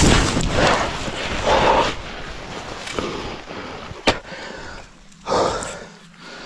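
Scrambling up a steep slope of rock and brambles: rustling and scraping of brush and rock with strained, heavy breathing, and a sharp knock about four seconds in.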